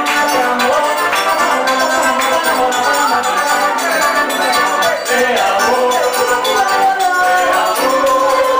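Live forró music: accordion melody over guitar, zabumba drum and jingling hand percussion, in a steady dance rhythm.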